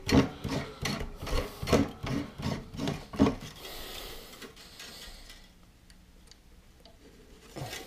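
Steel frame wire being pulled off a spool by hand and drawn through a wooden beehive frame on a wiring jig: a quick run of clicks and rubs for about three seconds, a short hiss of wire drawn through, then quieter handling.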